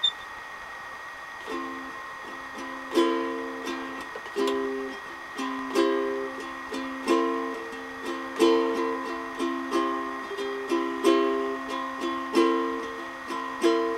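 Donner carbon fiber ukulele played as a short demonstration: chords strummed at an even, unhurried pace, starting about a second and a half in.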